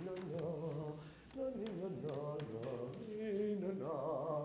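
A man's voice singing a wandering tune in short phrases, with no clear words, ending on a held note.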